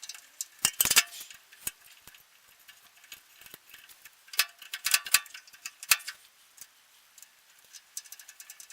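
Scattered sharp clicks and clinks of small metal parts and tools being handled while a micro adjuster is fitted to a table saw's rip fence. Louder clusters come about a second in and again around five seconds in.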